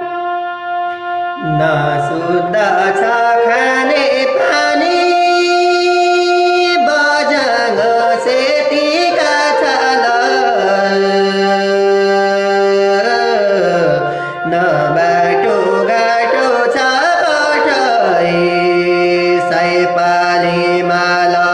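Harmonium playing the instrumental opening of a Nepali Thadi bhaka folk song. A sustained chord sounds for about the first second and a half, then a busy melody runs over held drone notes.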